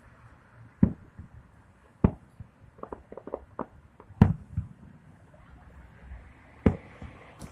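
Fireworks bursting: four sharp booms spread a second or two apart, the loudest a little past the middle, with a quick run of smaller crackling pops about three seconds in.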